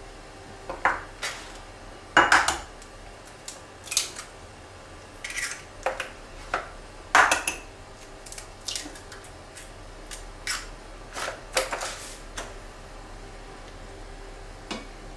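Dishes and utensils clinking against a saucepan as eggs are tipped from ramekins into poaching water: a dozen or so irregular sharp clinks and knocks, the loudest about two seconds in and about seven seconds in.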